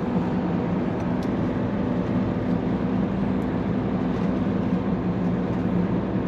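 Steady in-cab engine and road noise from a truck cruising along a highway, with a constant low engine drone.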